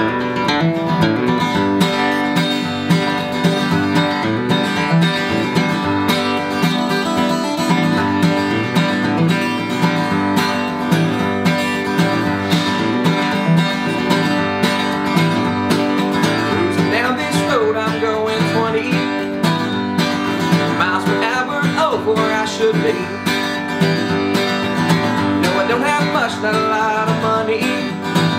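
Steel-string acoustic guitar strummed and picked in a steady rhythm.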